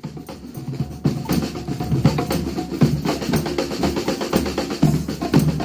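Street band drumming: snare and bass drums playing a fast, driving rhythm, swelling in as it starts and getting louder about a second in.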